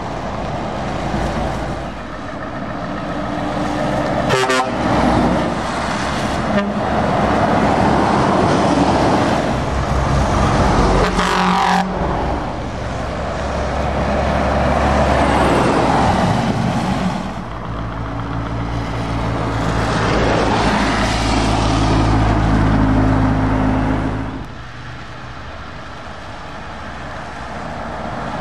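Diesel lorries driving past one after another on a wet road, engines running and tyres hissing on the wet surface. A truck horn toots briefly about four seconds in and again around twelve seconds. A heavy engine hum builds from about seventeen seconds and drops away suddenly near twenty-four seconds as a lorry passes.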